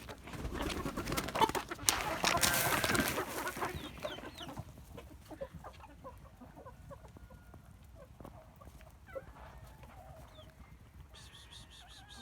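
Chickens clucking with short, scattered calls, more of them near the end. A loud noisy rustle with a few sharp knocks fills the first few seconds.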